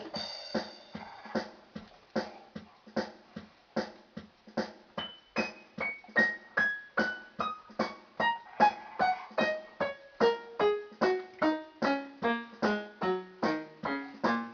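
Electronic keyboard playing a steady run of short piano-like notes, about two to three a second, falling in pitch in repeated downward runs from about five seconds in.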